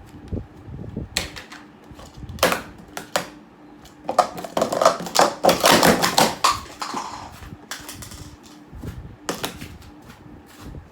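Plastic sport-stacking cups clacking as they are stacked up and down at speed: scattered sharp clicks, then a dense run of rapid clattering about four to seven seconds in, and a few more clicks near the end.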